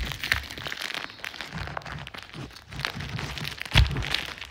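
A blind-box package being torn open by hand: irregular crinkling, crackling and rustling of packaging, with handling knocks. One louder knock comes shortly before the end.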